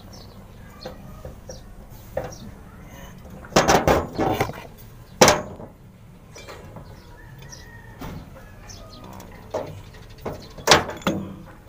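Oil filter housing canisters being handled and knocked together on a workbench: a short clatter of hard knocks about three and a half to four and a half seconds in, a single sharp knock just after five seconds, and another knock near the end, with light handling noise between.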